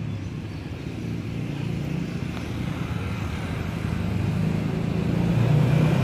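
Road traffic: a motor vehicle's engine running steadily and growing louder toward the end as it comes closer.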